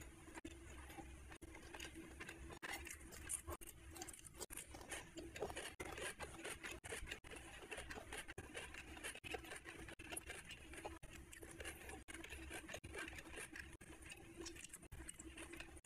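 Close-miked sounds of eating by hand: fingers mixing rice with curry on a plate, heard as faint, irregular small wet clicks and crackles.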